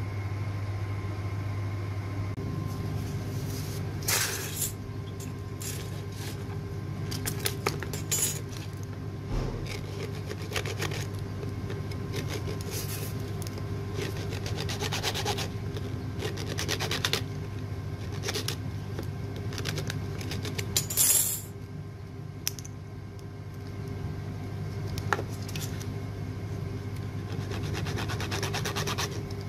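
A hand-held hacksaw blade scraping and sawing against metal in short spells of back-and-forth strokes that start and stop irregularly, over a steady low hum.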